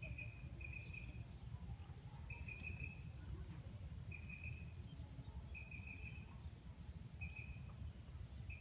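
An animal calling a short, high-pitched note over and over, every second or two, each note under half a second long, over a low, unsteady rumble of wind on the microphone.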